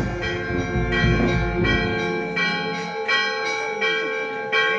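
Church bell rung in steady single strokes about every 0.7 s, each stroke ringing on into the next.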